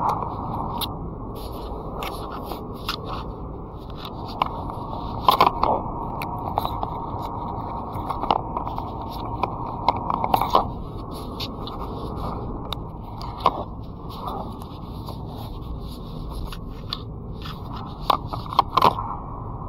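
Steady road and engine noise of a car being driven, with frequent short clicks and scrapes scattered through it, louder clusters about five, ten and eighteen seconds in.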